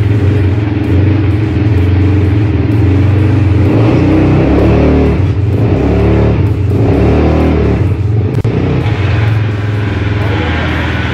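Petrol ATV quad bike engine running as the bike is ridden slowly, with music playing over it.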